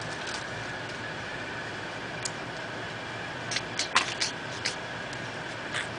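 A few short crinkles and clicks from a foil trading-card pack wrapper being opened and handled, over a steady background hum.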